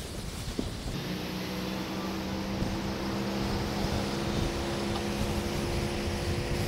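Car driving on a city street: steady road and wind rumble with hiss, joined about a second in by a steady engine hum.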